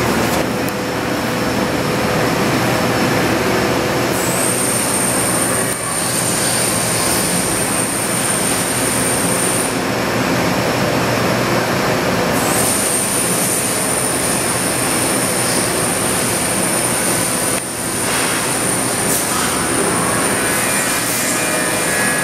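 Steady, loud machine-shop noise with a constant hum. A high, thin whine glides in about four seconds in, cuts out near ten seconds, and comes back about twelve seconds in.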